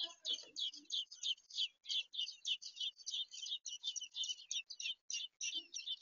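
American robin nestlings begging for food: a rapid run of short, high squeaky calls, several a second, that keeps going throughout. A brief low rustle comes near the start.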